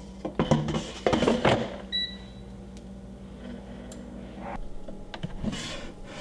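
Air fryer basket pushed into a Gourmia air fryer with a few clattering knocks, then one short beep from its touch control panel about two seconds in, over a low steady hum.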